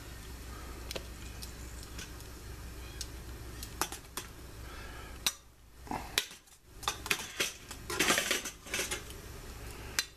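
Metal tongs clicking and scraping against a stainless steel steamer basket as steamed portobello mushroom caps are lifted out, with a steady low hum underneath. The clicks come in scattered bursts, densest about eight seconds in.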